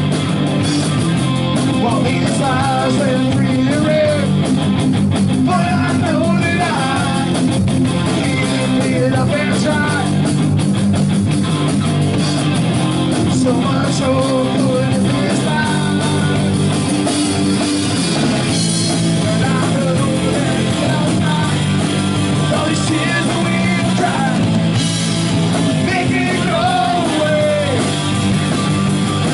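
Punk rock band playing live and loud: distorted electric guitar, electric bass and drum kit, with a voice singing over them.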